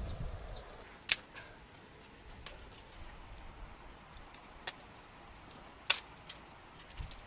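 A few sharp, brief clicks and snaps over a faint background, with the loudest about a second in and another near six seconds, and smaller ones in between.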